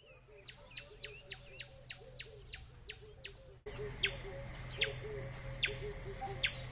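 Evening nature soundscape: a steady high insect drone under a bird's sharp downward-sliding chirps, about three a second at first, then louder and about a second apart, with soft low hooting calls beneath. About halfway through, the whole soundscape suddenly gets louder.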